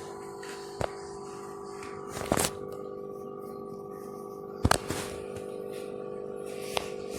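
A few short, sharp clicks and taps from handling craft materials at a work table, four in all, spread over a steady low hum.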